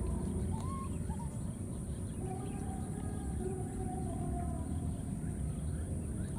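Thin, faint calls of a baby monkey: a short rising call about half a second in and a longer, fairly level one from about two to four and a half seconds. Under them run a steady low rumble and a steady high-pitched buzz, the rumble being the loudest sound.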